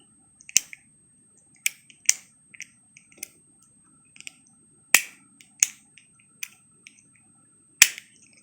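Repaired Porsche 993 power window rocker switch, not yet installed, clicking as it is rocked up and down by hand; its broken pivot pin has been replaced with a cut-down nail. Sharp clicks come at irregular intervals, a few loud ones with quieter ticks between.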